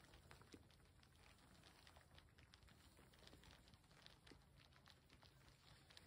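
Near silence: faint outdoor ambience with scattered faint ticks and clicks.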